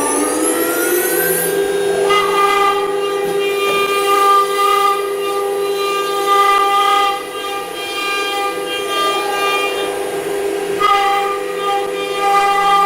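Automatic tool-change spindle of a CNC router (HSD 12 HP) winding up with a rising whine and settling at a steady high pitch about a second and a half in. From about two seconds a harsher multi-tone whine from the bit cutting comes and goes, dropping away briefly around the middle and coming back strongly near the end.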